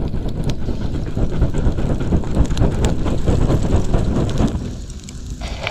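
Small twig campfire being fanned by hand: gusts of air buffet the microphone as a rough, fluttering rumble over the crackle of burning twigs, which is how a struggling fire is coaxed to catch. The fanning dies down near the end, leaving the crackle.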